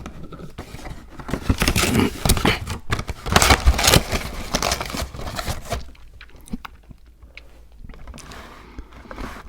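Close-miked chewing of crunchy Icee-flavoured cookies, dense crunching that thins out and grows quieter after about six seconds.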